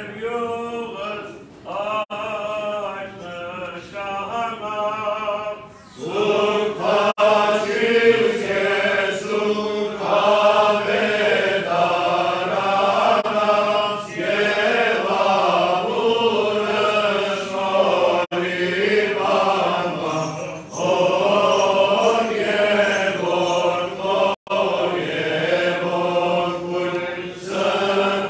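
Armenian church chant sung by men's voices together. Short, quieter phrases for the first six seconds, then the singing becomes fuller and louder and carries on steadily.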